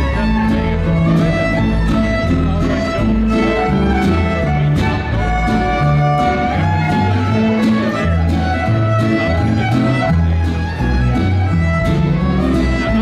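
Western swing band playing an instrumental rag, with fiddle carrying the melody over rhythm guitar.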